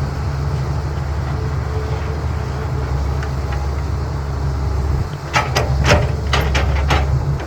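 CAT 320B excavator's diesel engine running steadily under load. A little past five seconds in comes a quick series of about six sharp knocks, like rock striking steel.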